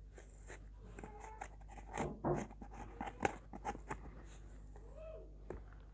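Close handling of satin ribbon and cardboard during hand sewing: soft scratchy rustles and small irregular clicks as needle and thread are worked through the ribbon and the strips are shifted on the card.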